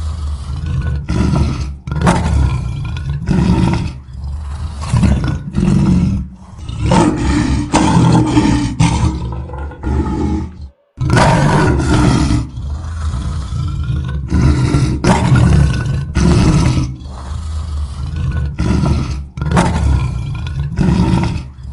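Lion roaring: a long run of short, deep roaring calls, one after another in quick succession. The sound cuts out completely for a moment about halfway through, then the calls resume.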